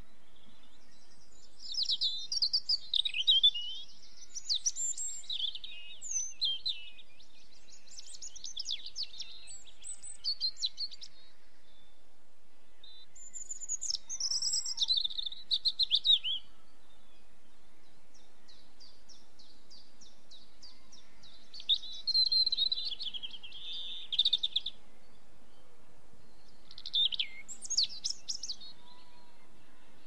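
Small songbirds singing high-pitched, twittering phrases, each lasting a few seconds, repeated about five times with short pauses between.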